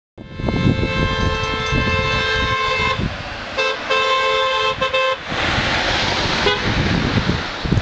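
Two-tone car horn of the lead SUV in a bike race: a long blast of about three seconds, then a few shorter honks. A brief rush of noise follows as the vehicle passes.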